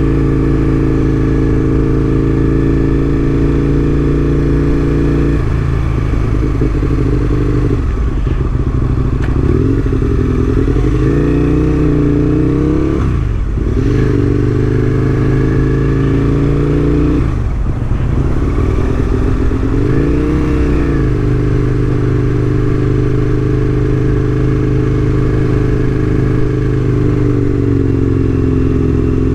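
Aprilia RSV1000's V-twin engine pulling steadily under way, heard on board. Its pitch rises and falls several times as the throttle is worked, with brief drops around the middle.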